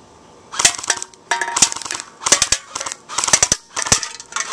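Airsoft M14 rifle firing on full auto: rapid sharp clacks in about five short bursts, each under half a second, with brief gaps between them.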